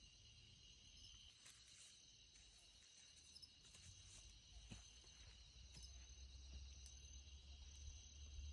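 Near silence with a faint, steady chorus of crickets, a few faint clicks, and a low rumble that grows louder in the second half.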